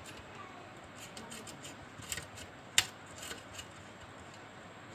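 Screwdriver turning the screws at the back of an electric iron: scattered small metal clicks and scrapes, with one sharp click a little under three seconds in.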